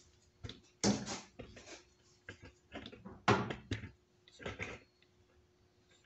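A few irregular, sharp clunks and knocks of handling noise at a workbench, over a faint steady hum.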